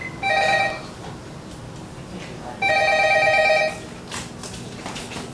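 Landline desk telephone ringing with an electronic trilling ring: a short ring near the start, then a longer ring of about a second from about two and a half seconds in.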